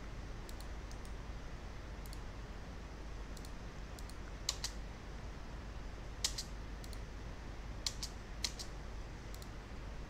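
Scattered sharp clicks from a computer mouse and keyboard being worked, a dozen or so spaced irregularly, several in quick pairs, over a low steady hum.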